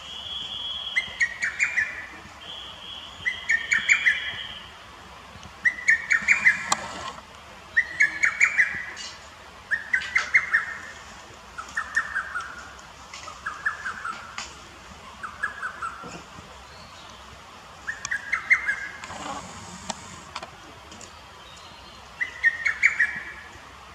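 Lesser cuckoo singing its rapid, stuttering five-note phrase, the song heard in Japanese as 'tokkyo kyokakyoku' or 'hototogisu', repeated about every two seconds with a longer pause toward the end.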